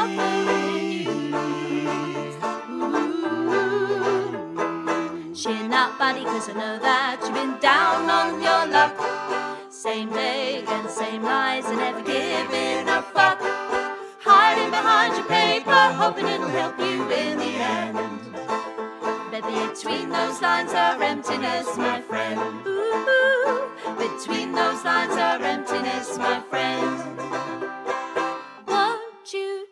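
A song with a singing voice over plucked-string accompaniment.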